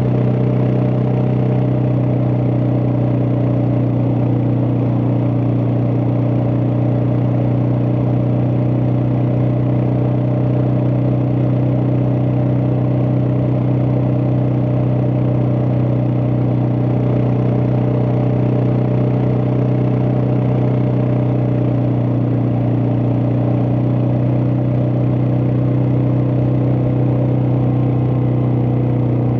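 Suzuki DR650's single-cylinder four-stroke engine running steadily at a constant engine speed, with no revving up or down.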